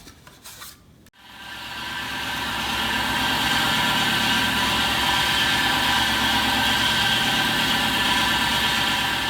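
Belt-driven Delta 10-inch contractor table saw switched on about a second in, its motor and blade winding up to speed over a second or two and then running at a steady hum with a whine.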